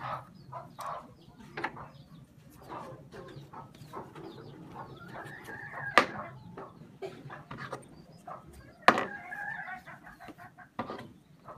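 Two drawn-out animal calls that rise and fall, one about halfway through and one about three seconds later, over scattered sharp knocks. The two loudest knocks come with the calls.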